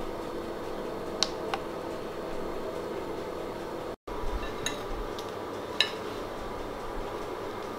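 A few light clinks of crockery and cutlery, sharp and briefly ringing, twice about a second in and three times after the middle, over a steady low hum. The sound drops out completely for an instant about four seconds in.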